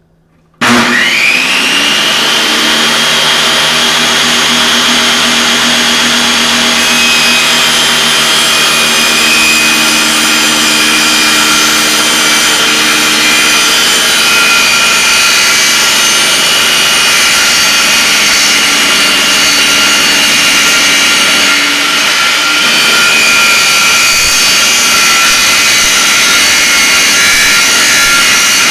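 Table saw switched on about half a second in: the motor and blade spin up with a quick rising whine, then run steadily and loudly at full speed.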